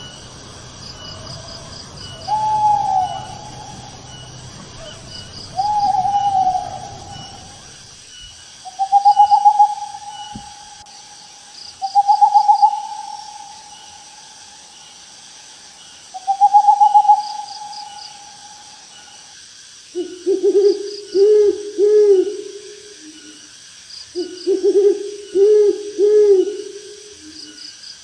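Owls hooting. First come several long, drawn-out hoots a few seconds apart. From about two-thirds of the way through, a lower-pitched owl gives quick runs of three or four short hoots. Faint insects chirp steadily in the background.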